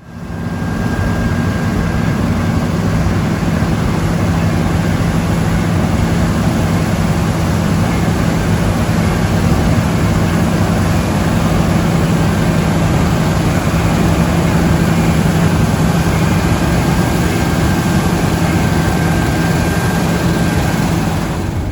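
Heavy farm machinery running steadily under load: a deep, even engine hum with a faint high whine and a wash of mechanical noise, starting abruptly.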